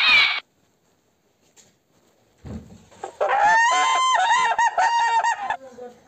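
An animal call after a short quiet: a held, slightly rising note with several overtones, breaking into a quick run of short notes for about a second.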